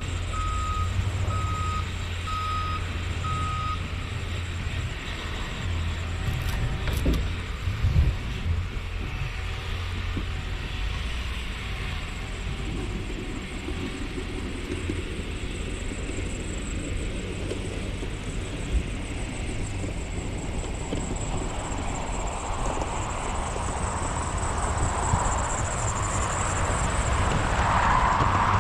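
Skid steer backup alarm beeping four times, about once a second, then stopping, over the steady low running of a vehicle engine. A loud knock comes about eight seconds in, and machine noise builds toward the end.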